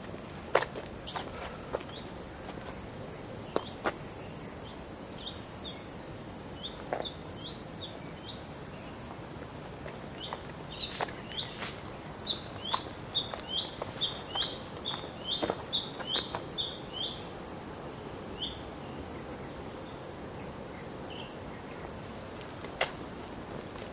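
Insects giving a steady high-pitched drone, with a bird calling a run of short, repeated chirps, about two a second, through the middle stretch. A few scattered sharp ticks, likely footsteps on the paved road.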